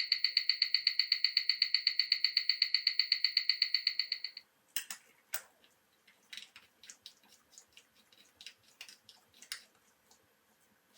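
Mechanical watch movement, an ETA 2892 automatic, ticking fast and evenly at about eight ticks a second, picked up close; the ticking stops about four and a half seconds in, followed by a few faint clicks and taps.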